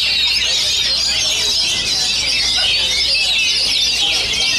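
Many caged oriental magpie-robins (kacer) singing at once: a dense, continuous tangle of fast, high chirps and whistles.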